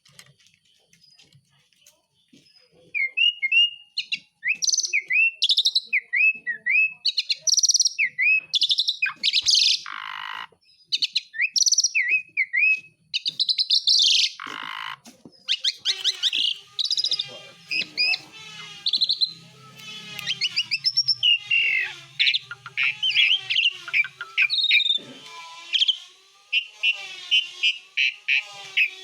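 Asian pied starling singing energetically: a long, varied run of clear whistles, falling and rising notes and rapid chatter, mixing in imitations of other birds' calls, starting about three seconds in.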